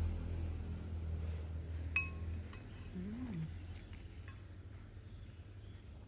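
A metal utensil clinks against a ceramic bowl of noodles about two seconds in, one sharp clink with a short ring, followed by a few fainter clicks of the utensil in the bowl.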